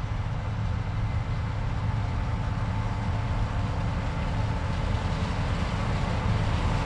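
Heavy farm machinery engine running steadily: an even low rumble with a faint steady hum above it.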